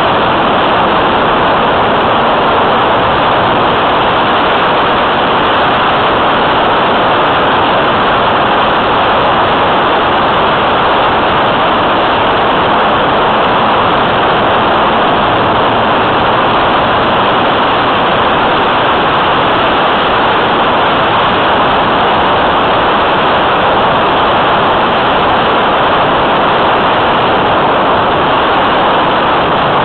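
Steady, loud rush of airflow buffeting the microphone of a camera mounted on a radio-controlled model plane in flight: an even hiss with no clear tone.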